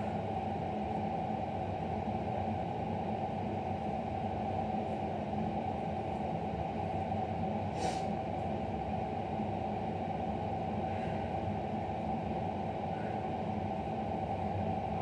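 A steady low hum with a fixed tone in it, like a running fan or appliance, and one faint click about eight seconds in.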